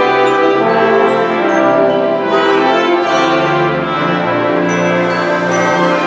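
Symphony orchestra playing an arrangement of Hanukkah songs live, with the brass section prominent over the strings. Full sustained chords sound over a bass line that steps to new notes every second or so.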